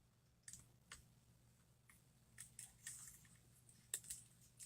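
Faint, scattered small clicks and light scrapes of hand tools working on an iPhone during a teardown.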